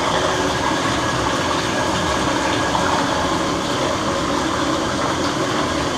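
Hot water running steadily from a bathtub spout into the tub.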